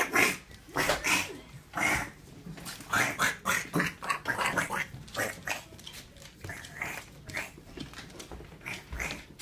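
A toddler imitating a duck, making many short, rough quacking sounds in an uneven run.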